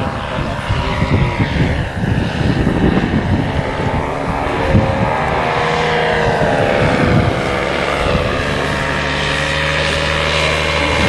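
Paramotor engine and propeller running in flight, the engine note wavering up and down in pitch and then holding steady. Gusts of wind rumble on the microphone in the first half.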